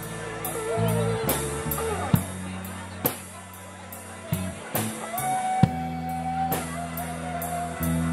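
Live rock band playing a slow song: drum kit keeping time with steady cymbal strokes, bass notes held under it, and electric guitar sustaining long lead notes, one bent up and back about a second in.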